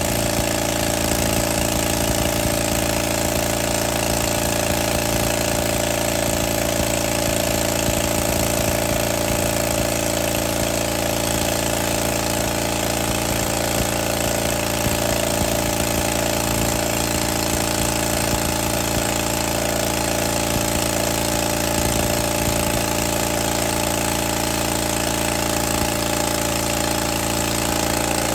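Detroit-badged Deutz diesel engine running loud and flat out at a steady, unchanging speed, being deliberately run to destruction in a runaway.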